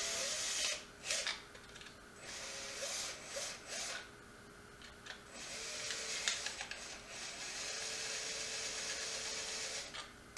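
Cordless drill with a step drill bit cutting through a lid, widening the hole step by step. It runs in several short bursts, then in one longer run of about four seconds near the end.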